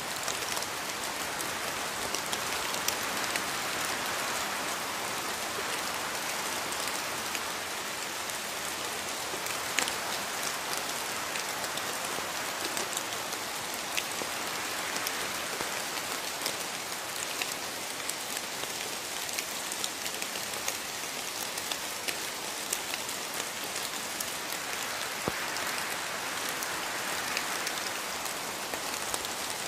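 Steady rain falling, an even hiss of rainfall with scattered sharper drop impacts.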